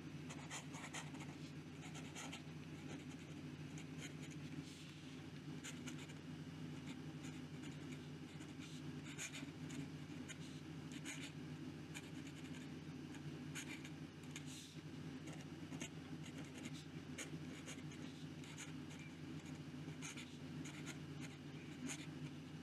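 Steel Zebra G flex nib in a fountain pen scratching over paper in short, irregular strokes as handwriting is written: very scratchy, like scraping the page with a sewing machine needle. A steady low hum runs underneath.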